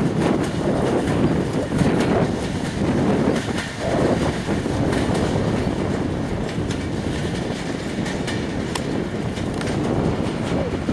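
Freight train of oil tank wagons rolling along the track, its wheels rumbling and clicking over the rails.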